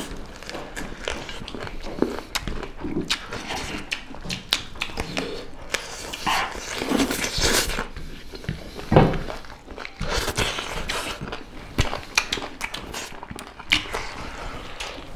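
Close-up eating sounds: chewing and lip-smacking as chicken legs and rice are eaten by hand, with many small wet clicks and a few louder bursts in the middle.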